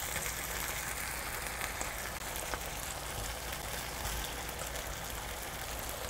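Pasta cooking water sizzling and bubbling steadily in a frying pan with hot olive oil and fried green onion, coming up to a simmer. There are a few faint ticks.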